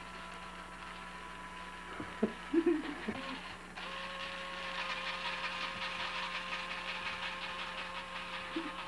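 Electric hand mixer running with its beaters in a bowl of nearly whipped cream. It is a steady whir whose pitch shifts about four seconds in, with a few knocks about two to three seconds in.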